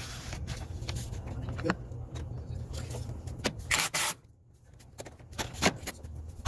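Cordless drill driving screws through the cover plate into the banner frame's base plate, in several short bursts over a steady low hum, the loudest about 4 seconds in. Each screw clamps the plates together and pulls the vinyl banner tighter.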